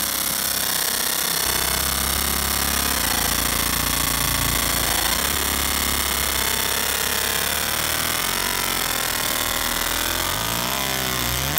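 Galvo laser marker engraving a hatch fill into an aluminum plate: a steady, harsh buzz from the beam ablating the metal, with whining tones that rise and fall as the beam traces the pattern.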